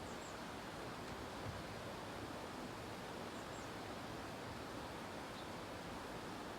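Steady outdoor ambient hiss, with a few faint, brief high-pitched chirps.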